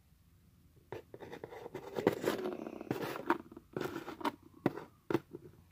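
Small plastic toy figures being handled and moved across a cardboard box top, making a run of light taps and scraping rustles that start about a second in and stop near the end.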